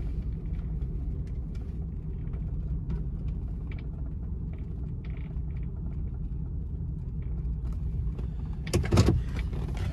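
Steady low rumble of a car heard from inside the cabin, with faint scattered ticks over it and a brief louder sound about nine seconds in.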